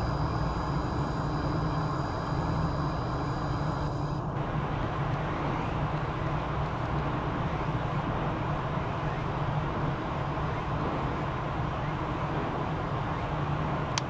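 Steady outdoor background of distant road traffic: a continuous low rumble and hiss. A steady high whine stops suddenly about four seconds in.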